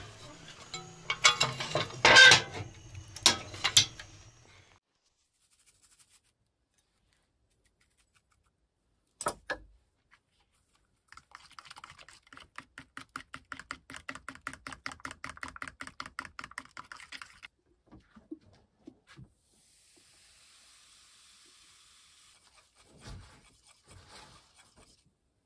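The round metal door of a barrel wood stove is swung shut with a few loud clanks. After a quiet pause, a fork beats pancake batter in a plastic bowl, a fast even clicking of about five strokes a second for several seconds, with a few softer stirs near the end.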